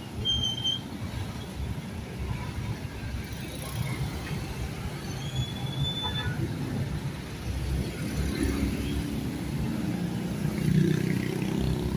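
Street traffic running with a steady low rumble, with two short high squeals in the first half. In the last few seconds a motorcycle tricycle's engine gets louder.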